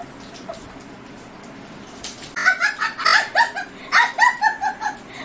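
A woman laughing helplessly while being tickled: after a quiet start, a quick run of short, high-pitched shrieks of laughter begins about halfway through.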